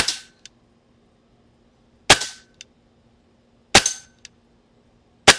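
Benjamin Marauder semi-automatic PCP air rifle firing four shots about one and a half to two seconds apart, each a sharp crack. About half a second after each shot comes a faint tick, the pellet striking a metal target downrange.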